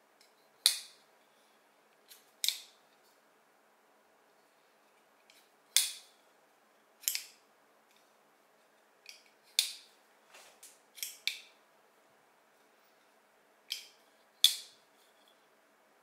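Kansept Naska titanium-handled folding knife being flicked open and snapped shut over and over: about a dozen sharp metallic clicks, some in quick pairs, as the blade swings out and locks and swings back into the handle.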